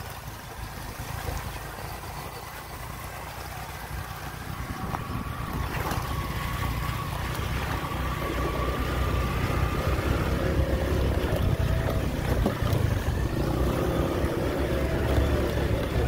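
Small motorcycle engine running as the bike rides along a dirt road, with wind on the microphone. The sound gets louder partway through.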